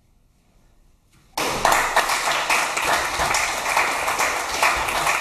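Near silence, then about a second and a half in a small group of people breaks into applause, hands clapping steadily.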